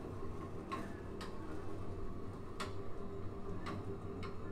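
Four light, sharp clicks at irregular intervals, from the straps and fittings of a chiropractic table being handled, over a steady low hum of the room.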